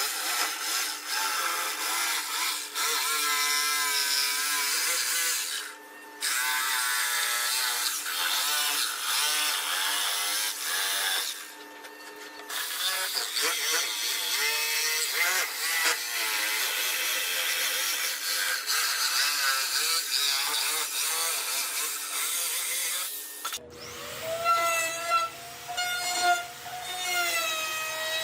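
Power tools working wood: a whining, whirring tool whose pitch wavers under load, with two brief pauses. Near the end it cuts abruptly to a different whirring tool.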